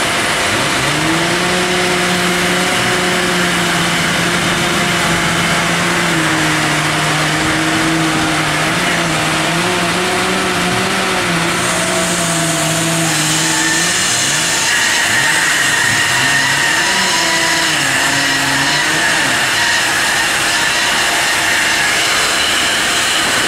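Machinery of an LBL Brenta CD horizontal bandsaw mill running: a steady motor hum whose pitch drifts up and down, over a constant hiss, with higher whining tones joining about halfway through.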